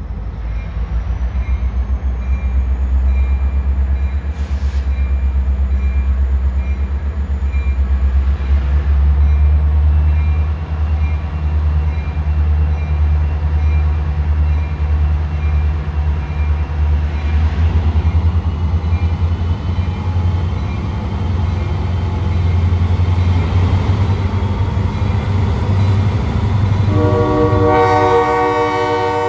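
Diesel freight locomotive engine working close by, a heavy low rumble with a fast even pulse. About 27 s in, the locomotive's air horn sounds a sustained multi-note chord.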